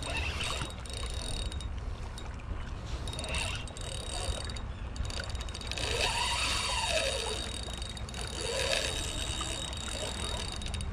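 Daiwa spinning reel being cranked against the pull of a hooked fish, its gears whirring as the handle turns.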